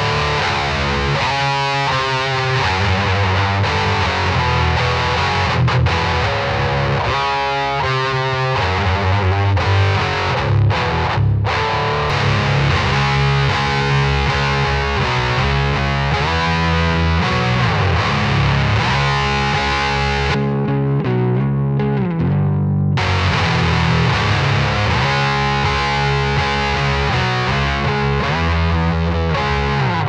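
Electric guitar played through a Wrathprayer one-knob distortion pedal with an HM-2-style tone stack: heavily distorted metal riffing. The treble drops away briefly about twenty seconds in.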